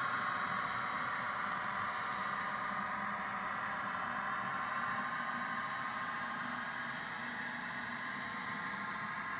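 HO scale model diesel locomotives and a string of boxcars running on the track, a steady mechanical running sound.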